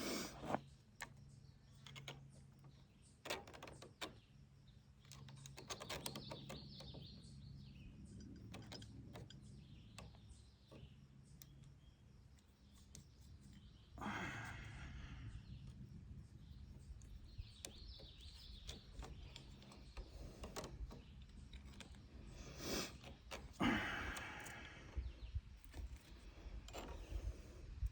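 Faint scattered clicks and short rustling handling noises, over a low steady hum in the first half.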